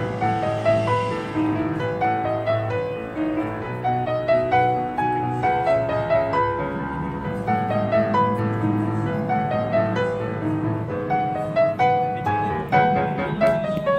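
Background piano music: a quick melody of many short notes over a steady lower accompaniment.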